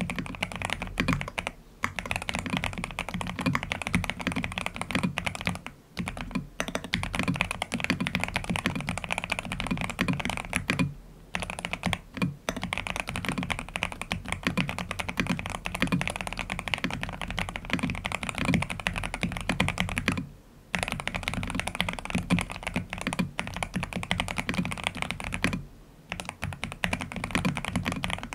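Continuous typing on a Cyberboard Terminal mechanical keyboard fitted with Aqua King switches and a three-layer tape mod, dense rapid keystrokes with short pauses every few seconds.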